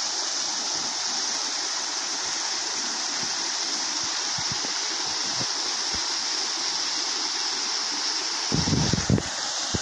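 Small river flowing steadily, a constant rushing of water. Near the end, a brief burst of low rumbling thumps.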